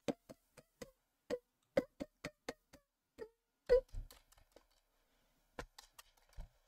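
Computer keyboard keys pressed one at a time in slow, uneven hunt-and-peck typing, about two to four clicks a second with a pause of about a second past the middle.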